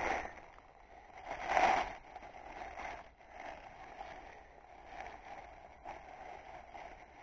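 Faint rustling of dry leaf litter and undergrowth as a porcini mushroom is grasped and pulled out by hand, with one louder rustle about a second and a half in.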